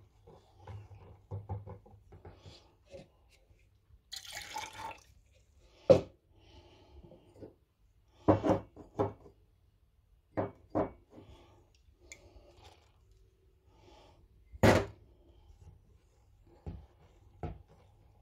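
Wire whisk beating a thin semolina batter in a plastic bowl: wet sloshing and splashing, broken by several sharp knocks of the whisk against the bowl, spaced irregularly a second or more apart.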